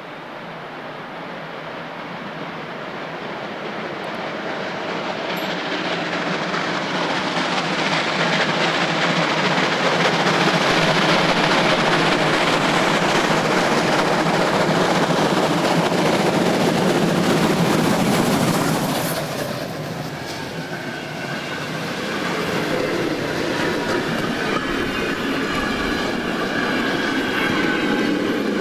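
Three-cylinder steam locomotive 58 311, a DR class 58.30 2-10-0, hauling a freight train. Its exhaust grows louder as it approaches and is loudest just before it passes, about two-thirds of the way in. The freight wagons then rattle past on the rails.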